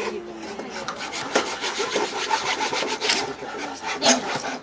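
Wood being worked by hand with quick back-and-forth rubbing strokes, several a second, a rasping scrape of abrasive or tool on wood; one stroke about four seconds in is louder than the rest.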